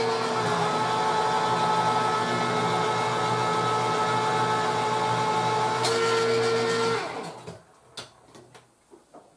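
Electric can opener running steadily with a motor whine as it cuts around the lid of a can of corn, stopping about seven seconds in. A few light clicks and taps follow.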